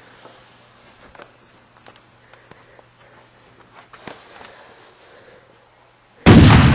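Soft footsteps and rustling under a faint steady hum, then, near the end, a sudden, very loud, distorted scream.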